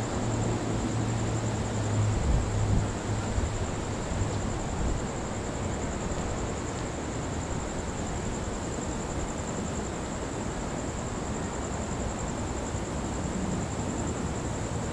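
Steady rush of wind from a thunderstorm's gusty outflow, with a low hum in the first three seconds and a thin steady high-pitched whine.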